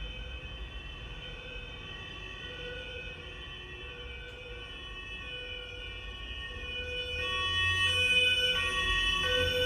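Ambulance siren sounding a two-tone call that steps back and forth between a high and a low pitch, over a low rumble. It grows louder about seven seconds in, as if the ambulance is approaching.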